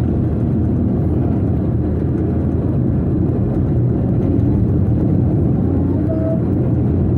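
Steady, low rumble of a car's road and engine noise heard from inside the cabin while driving at an even pace.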